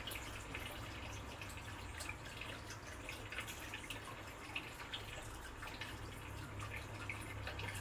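Water dripping and splashing lightly: many small, irregular drips over a low steady hum.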